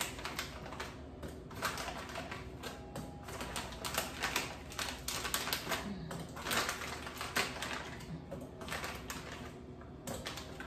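Plastic bag of frozen fruit crinkling and rustling as pieces are pulled out, with quick irregular clicks and clatters of frozen chunks going into a small personal blender cup.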